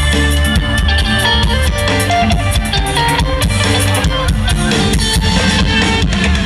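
Live luk thung band playing a loud, upbeat instrumental passage: drum kit keeping a steady beat under electric guitar and bass.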